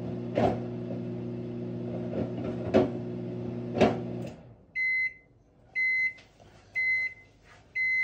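Sunbeam countertop microwave oven running with a steady hum and a few sharp clicks, then shutting off about four seconds in and beeping four times, about once a second, to signal the end of its cooking cycle.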